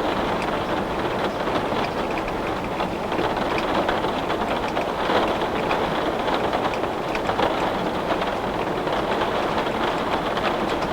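Heavy rain falling on window glass: a steady, dense patter made of many separate drop hits.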